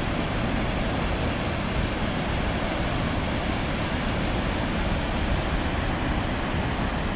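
Water pouring over the Skradinski buk waterfall cascades: a steady, even rush of falling water.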